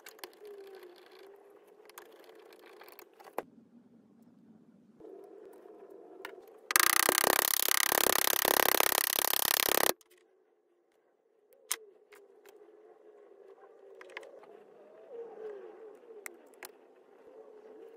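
A hammer striking a copper wire end on a steel vise anvil to flatten it: a fast, dense run of metal-on-metal blows lasting about three seconds, far louder than anything else. Before and after come scattered sharp clicks of hand tools and the wire handled at the terminal block.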